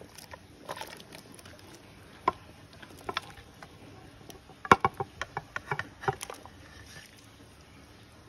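Utensils knocking and clinking against a cooking pot: a single knock about two seconds in, a pair about a second later, then a quick run of clinks about halfway through.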